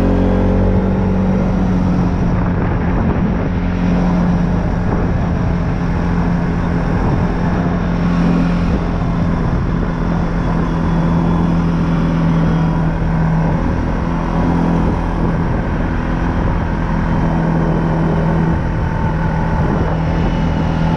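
ATV engine running under a rider on a dirt trail: it rises in pitch right at the start as the quad speeds up, then holds a steady cruising speed.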